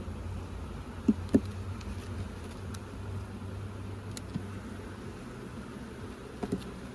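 Honeybees buzzing steadily around an open hive, with two short knocks a little after a second in and two more near the end.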